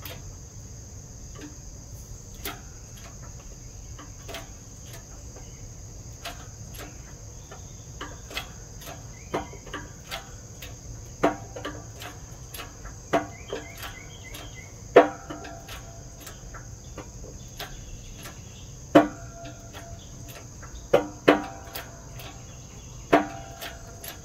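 Sharp metallic pings and clicks from a wheel bearing being forced onto a Nissan Titan rear axle shaft under a 20-ton hydraulic shop press. They come irregularly, a second or two apart, and grow louder and more frequent through the second half as pressure builds and the bearing nears its seat.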